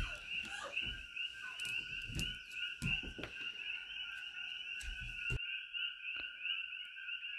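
A steady chorus of coqui frogs: many quick two-note rising chirps overlapping without a break. Over it come a few knocks and scrapes as a knife cuts and peels a cassava root on a wooden cutting board.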